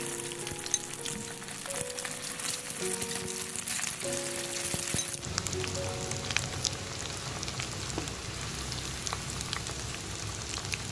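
Perkedel (potato fritters) frying in hot oil: a steady sizzle with scattered sharp pops and crackles. Background music with a simple melody plays over the first half and stops about five seconds in.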